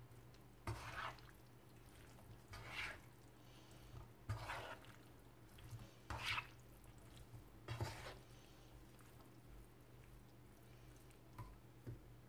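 Plastic slotted spoon stirring and turning pasta in a non-stick pan: about five soft scraping swishes, roughly a second and a half apart, over a faint steady low hum.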